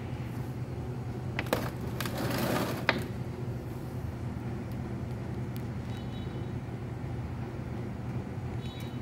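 Steady low mechanical hum, with a short burst of rustling noise and two sharp clicks about two seconds in.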